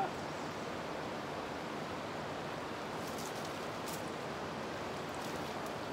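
Steady rush of fast river rapids: an even, unbroken noise of flowing water. A few faint high clicks sound about halfway through.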